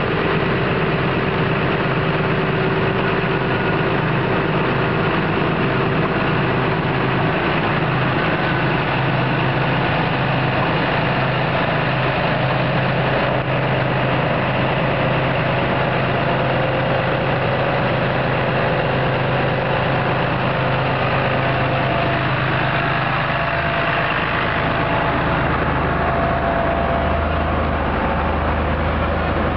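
Claas combine harvester's diesel engine running steadily as the tracked machine crawls through deep mud, with a change in the engine note a little after three-quarters of the way through.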